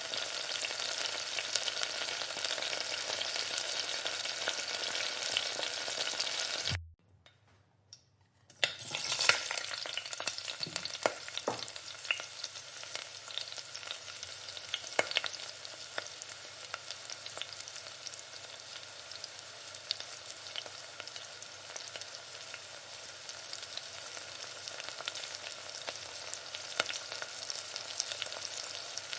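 Food frying in a pan, a steady sizzle with scattered clicks of stirring. About seven seconds in the sound cuts out for under two seconds, then the sizzle returns a little quieter, with sharper clicks.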